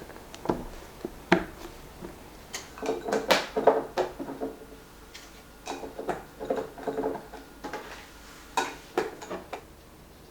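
Kitchen handling sounds: a series of knocks and clinks of dishes and utensils, some briefly ringing, coming in short clusters.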